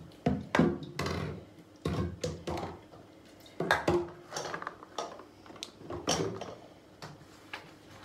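Aerosol spray can and plastic bottles being picked up and set down on a stone bathroom countertop and a plastic toiletry caddy being moved: a string of knocks, clatters and scrapes, about eight in all.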